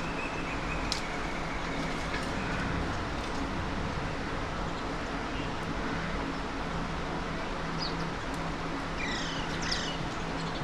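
Steady city traffic noise with a low engine drone. Near the end a bird gives a few short, sharp descending calls.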